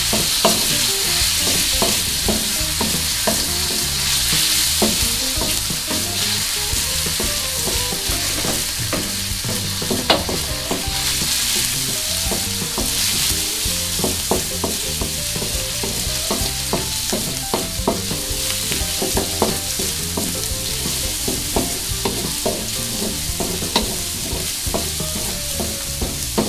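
Minced garlic sizzling in melted butter in a wok, with a steady frying hiss, while a wooden spatula scrapes and knocks against the pan in frequent short strokes as it is stirred.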